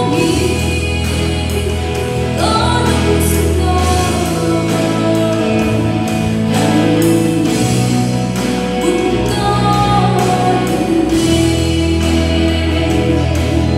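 A live Christian worship band playing a song: a woman singing the lead melody over electric guitars, bass guitar, drums and keyboard.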